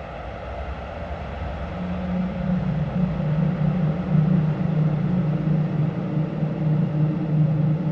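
Soma Labs Lyra-8 analog drone synthesizer swelling in. A deep hum fades out over the first few seconds while a wavering, throbbing drone builds and grows louder from about two seconds in.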